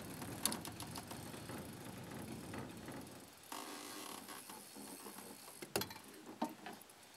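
Fishing reel working under the load of a hooked large pike: a fast mechanical rattle of the reel, louder for the first three seconds and softer after, with a few sharp clicks.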